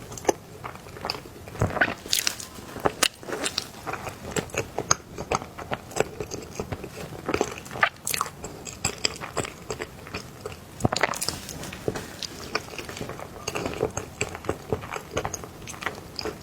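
Close-miked mouth sounds of someone eating soft cake: irregular wet clicks, smacks and chewing, with a few sharper bites.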